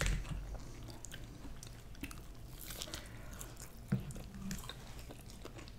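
Close-miked chewing and biting of breaded boneless chicken wings dipped in ranch, with small wet mouth clicks. A soft knock comes right at the start and another about four seconds in.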